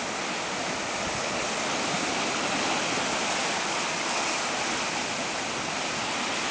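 Ocean surf breaking and washing over shoreline rocks, a steady hiss of churning water.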